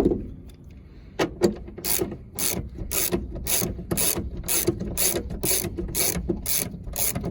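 A single knock at the start, then a hand ratchet wrench clicking in steady back-and-forth strokes, about two a second, as it turns a seatbelt anchor bolt in the car.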